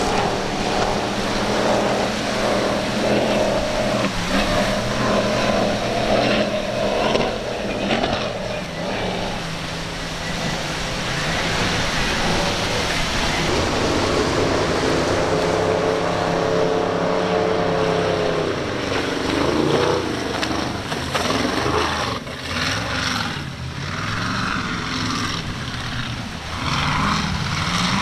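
Several motorboat engines running, their pitch swelling and falling a few times as the boats throttle and pass, over a steady wash of water and wind noise.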